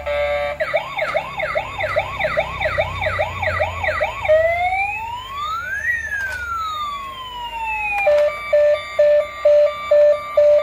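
Battery-powered toy police excavator playing its electronic siren sound effect. The sound is a run of quick rising whoops, about three a second, then one slow wail that rises and falls, then a rapid on-off beeping near the end.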